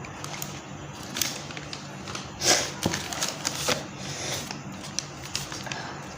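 Rustling and light knocks of small items and their packaging being handled, with the loudest knock about two and a half seconds in.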